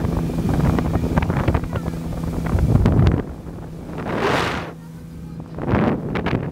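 Speedboat engine running steadily under way, with wind rushing over the microphone. About three seconds in the engine drops away, leaving gusts of wind noise.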